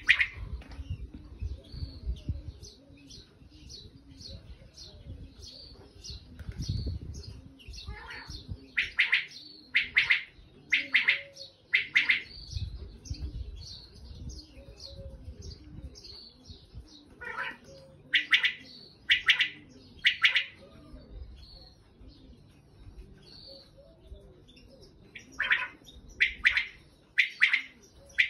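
Common quail calling: loud, sharp calls in short runs of three or four, about a second apart, with pauses of several seconds between runs. Fainter chirps of other birds sound in between.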